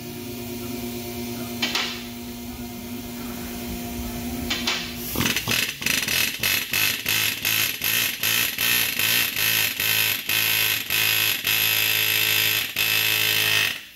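Pneumatic air hammer punching rusted-through studs out of the back of a BMW 335i's exhaust downpipe. From about five seconds in it hammers in quick, even bursts, about three a second, until it stops abruptly. Before that there is a steady mechanical hum with a couple of single clicks.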